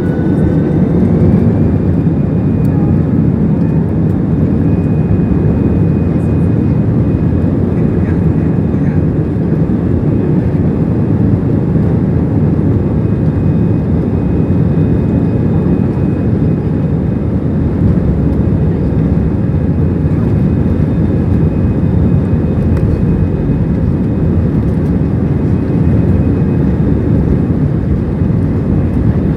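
Jet airliner engines running at takeoff thrust: loud, steady engine noise with a high whine that rises in pitch at the start, then holds level.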